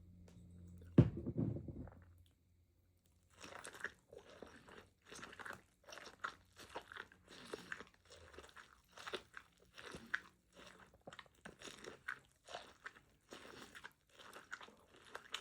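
A loud thump about a second in. Then, after a short pause, close-miked crunchy biting and chewing of elote (corn on the cob with mayo and hot sauce), several crunches a second.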